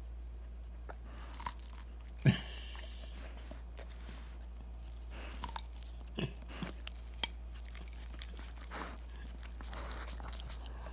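German Shepherd biting and chewing corn on the cob, with irregular crunches as she gnaws kernels off the cob and a sharp knock about two seconds in.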